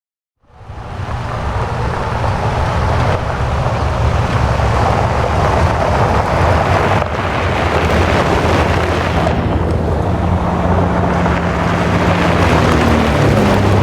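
A vehicle driving, with a steady low engine drone under loud rushing road and wind noise. It fades in about half a second in.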